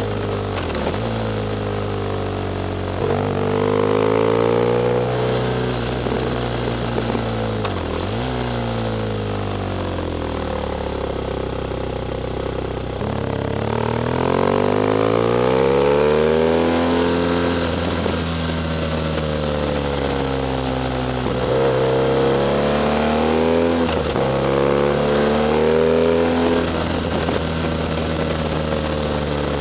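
BMW R1200GS's boxer twin engine under way, its pitch climbing under acceleration and falling off again and again, with several sudden drops as gears change or the throttle closes into bends.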